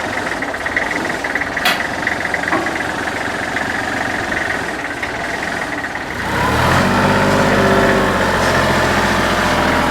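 A backhoe's diesel engine running with a rattling clatter, then about six seconds in it gets louder and settles into a steady, higher hum as it is throttled up.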